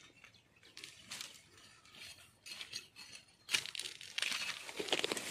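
Dry bamboo leaves and stems rustling and crackling as hands work at the base of a bamboo clump, breaking off bamboo shoots. Faint at first, then a sharp crack about three and a half seconds in, followed by denser crackling.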